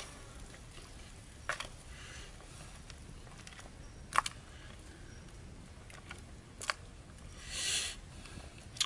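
Wood fire crackling under a clay cooking pot: a few sharp snaps a couple of seconds apart over a faint background, with a brief hiss near the end.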